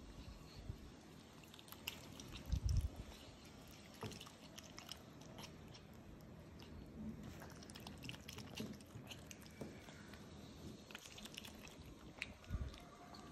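Otters chewing and biting pieces of papaya: faint, irregular wet mouth clicks and smacks. There are two low thumps, one about two and a half seconds in and another near the end.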